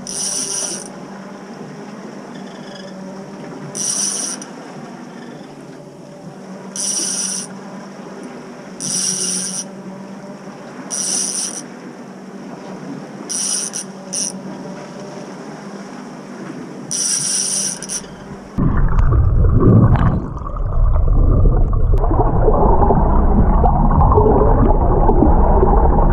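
A fishing reel being cranked in short rasping bursts, one about every two to three seconds, while a tuna is fought, over a steady low hum from the boat. About eighteen seconds in, the sound switches abruptly to loud underwater rumbling and water noise picked up by a submerged camera.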